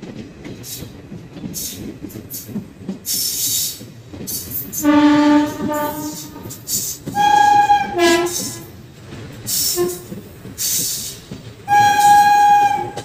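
A moving express train running along the track, with several separate horn blasts, one of them wavering in pitch, and gusts of wind on the microphone.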